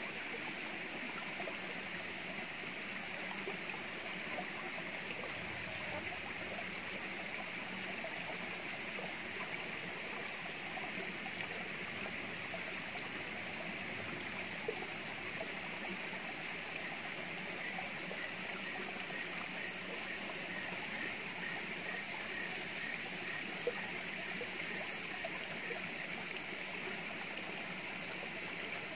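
Shallow stream running steadily over rock: an even rushing of water, with a brief sharp tap or two partway through.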